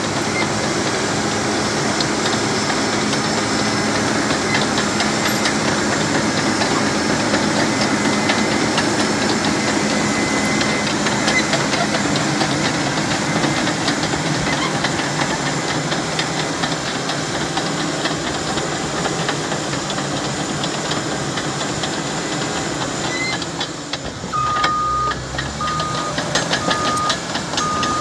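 Caterpillar D6N crawler dozer's diesel engine running steadily as it works dirt. About 24 seconds in its backup alarm starts beeping about once a second, over rapid clanking from the tracks.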